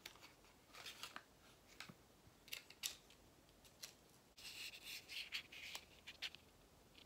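Faint clicks, taps and scrapes of a small clear plastic eyelash case being handled with long acrylic nails, with a stretch of plastic rubbing about halfway through.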